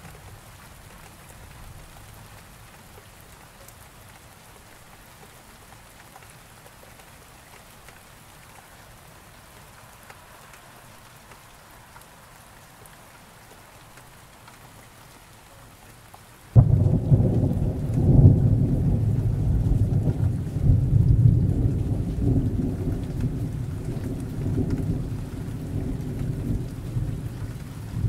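Steady rain falling, then about two-thirds of the way through a sudden loud thunderclap that rolls on as a long, low rumble over the rain.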